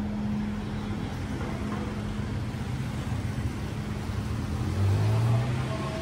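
Large pagoda bell's low hum ringing on and slowly fading after a strike, over a low background rumble. A deeper hum swells briefly about five seconds in.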